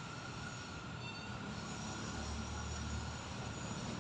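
Low, steady rumble of distant vehicles with background city noise, the rumble swelling about halfway through.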